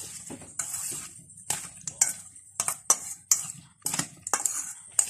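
Metal spoon stirring diced fish and cucumber in a stainless steel mixing bowl: sharp clinks against the bowl roughly every half second, with a short scrape near the start.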